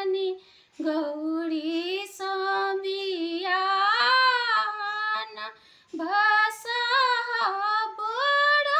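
A woman singing a Maithili Maheshwani, a devotional wedding song to Shiva, alone without accompaniment: long held notes that bend in pitch, broken twice by short breaths between phrases.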